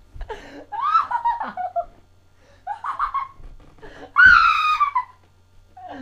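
A person's voice making three high-pitched squawks. The first and last slide down in pitch, the middle one is short, and the last is the loudest.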